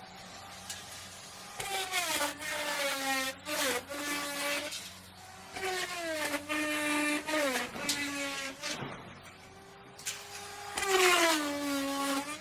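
Electric wood router cutting into wood: a pitched motor whine that sags in pitch each time the bit bites into the wood and recovers between cuts. It goes quieter about a second in, near five seconds and again around nine to ten seconds.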